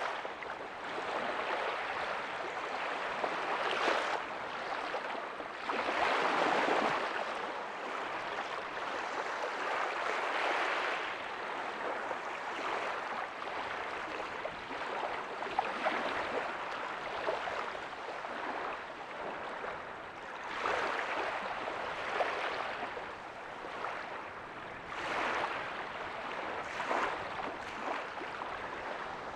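Ocean waves breaking softly on a beach, a continuous wash of surf that swells and fades every few seconds.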